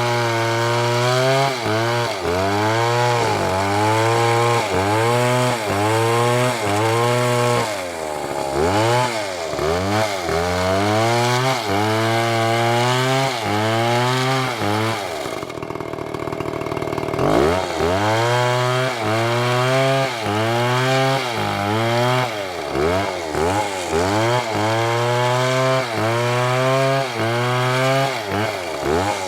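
STIHL MS720 chainsaw cutting through wood at full throttle, its engine pitch dipping under load and recovering about once a second. About halfway through, the engine falls back to a low idle for under two seconds, then revs up and goes back into the cut.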